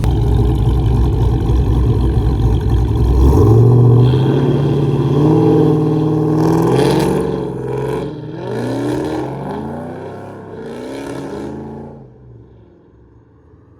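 Car engines accelerating hard, pitch climbing as they rev, then cars passing with the engine pitch rising and falling several times before fading away.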